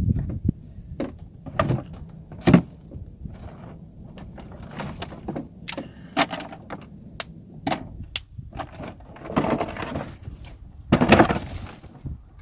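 Compressed wood fuel bricks knocking and clattering together as they are picked up and stacked by hand: a string of irregular thunks, the loudest about two and a half seconds in and again near the end.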